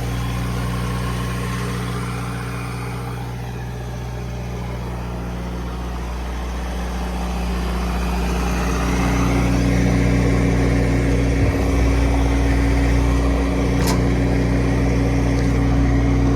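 Diesel engine running steadily at an even pitch, growing louder about halfway through.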